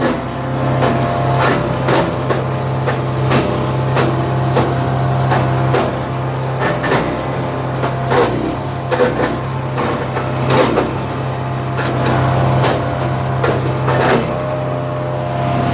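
Chipease wood chipper running while chipping 4-inch maple: a steady engine hum under frequent, irregular sharp cracks and knocks as the blades cut the wood.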